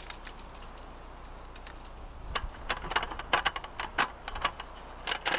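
Irregular light clicks and clacks, starting about two seconds in, of a small folding camp table with a wooden slat top and metal legs being unfolded and set up. Low wind rumble on the microphone before them.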